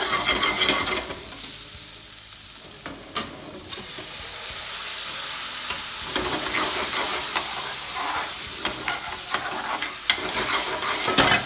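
Onion, tomato and spice paste sizzling as it fries in oil in a pan, stirred steadily, with the utensil knocking and scraping against the metal. The sizzle swells louder near the start and again near the end.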